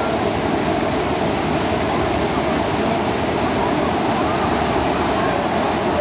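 Shallow mountain river rushing over rocks and a low cascade: a steady, loud rush of water.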